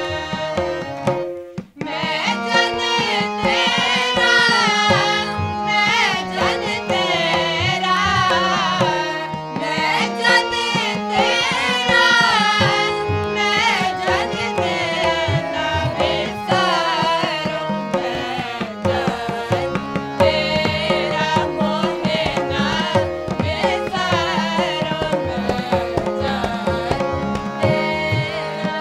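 Sikh kirtan simran: several voices singing to two harmoniums, with a tabla keeping the rhythm. The music breaks off for a moment about a second and a half in, then carries on.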